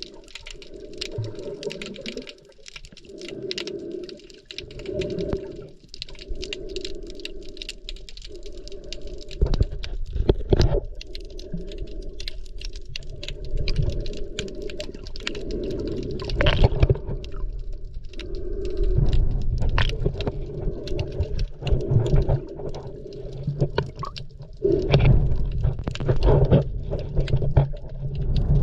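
Underwater sound picked up by a snorkeller's camera: dense, irregular crackling clicks throughout, over a hum that swells and fades every second or two, and low rushing water surges.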